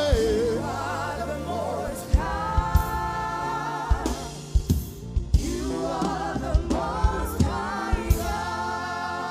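Live gospel praise singing: voices holding long, wavering notes over a steady bass, with drum hits through it.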